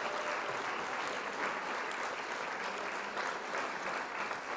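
Applause: dense, steady clapping from many hands.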